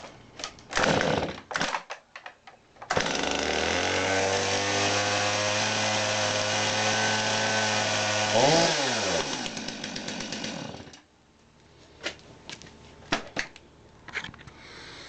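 Two-stroke chainsaw pull-started on half choke: a couple of starter-cord pulls, then the engine catches about three seconds in and runs steadily. It is blipped once, the pitch rising and falling back, and is shut off about eleven seconds in. A few light clicks of handling follow.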